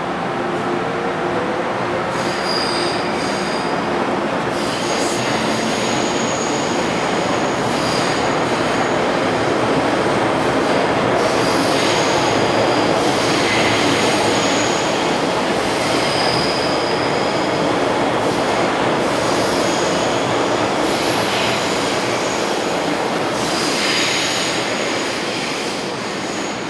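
MTR M-Train metro train running through the station without stopping: a steady rumble of steel wheels on the rails, with high-pitched wheel squeals that come and go over and over. It eases off a little near the end.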